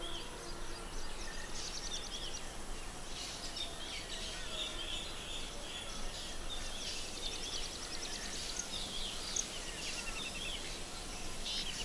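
Outdoor tropical ambience: several birds chirping and calling, some in quick rapid trills, over a faint steady background hiss.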